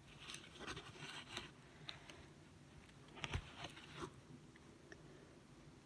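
Diamond-painting canvas and its protective plastic film being handled, crinkling in a series of short faint crackles over the first four seconds, the loudest a little past three seconds in.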